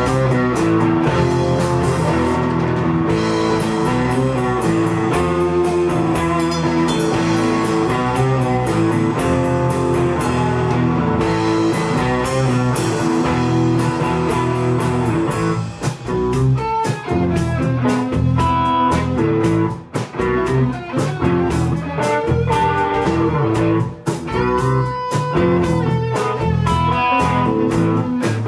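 Live band playing a blues-rock number on electric guitars and drum kit. About halfway through the playing thins out, with single held notes standing out.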